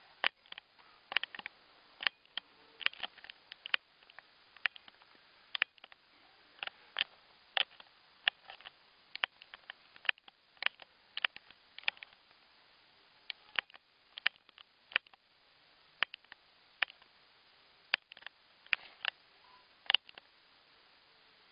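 Handling noise: irregular sharp little clicks and taps, a few a second, over a faint hiss, as a small handheld camera and hard plastic toy figures are moved about.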